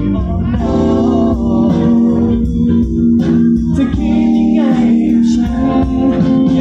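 Live pop music: a male singer's voice holding and bending notes over band accompaniment, sung into a handheld microphone.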